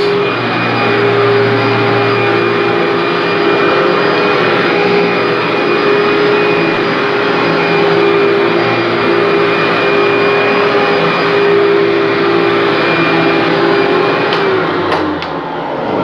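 Commercial upright vacuum cleaner running over carpet: a steady motor tone over the rush of air. About a second before the end the motor's pitch drops and the sound dips, with a couple of clicks.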